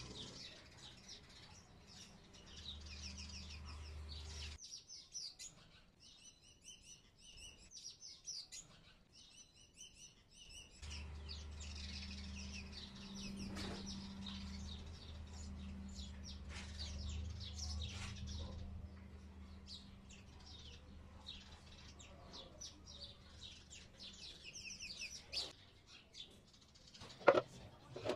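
Small birds chirping and tweeting in short repeated calls, over a low steady hum that comes and goes. A single sharp knock near the end.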